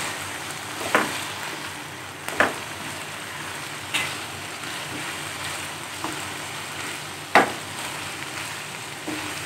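Chicken and mixed vegetables sizzling as they are stir-fried in a pan. A wooden spatula scrapes through them and knocks against the pan several times, the loudest knock coming a little past halfway.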